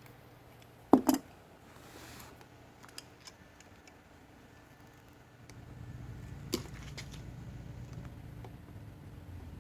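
Hand tools knocking and clicking against the metal parts of a starter's Bendix drive: two sharp knocks close together about a second in, then a few light clicks. A low steady rumble comes in about halfway.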